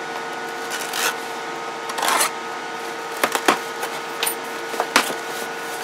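A cardboard shipping box being opened by hand: a longer scraping rasp about two seconds in, then several sharp clicks and ticks as the tape and flaps are worked. A steady electrical hum runs underneath.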